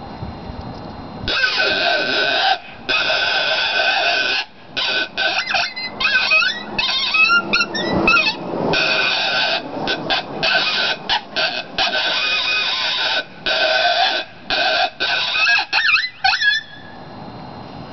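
Hand-made bison horn howler (a mouth-blown coyote call) making coyote fight sounds. Long rough blasts alternate with stretches of quick, choppy yelps that waver in pitch. It starts about a second in and stops near the end.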